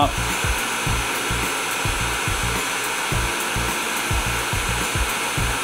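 Bosch PHG 630 DCE heat gun blowing a steady rush of hot air, with irregular low rumbling underneath. It is heating an Xbox CPU at about 400 degrees to melt its ball-grid solder for removal.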